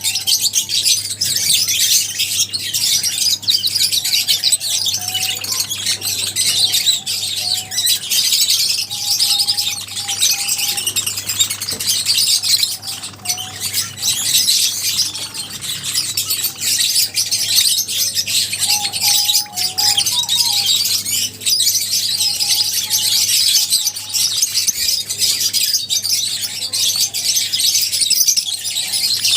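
A flock of lovebirds chattering and chirping nonstop, many high-pitched calls overlapping into a dense, shrill din.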